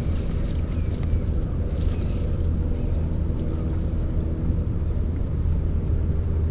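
A steady low rumble, with faint splashes about one and two seconds in from a hooked bass thrashing at the surface.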